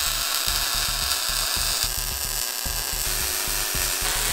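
Metalworking tool noise: a loud, steady hiss that shifts in character about two seconds in and again near the end, where a MIG welder is at work. Background music with a steady beat runs underneath.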